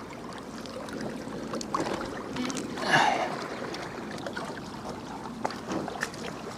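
Soft, steady noise of water at the bank, with scattered small clicks and taps.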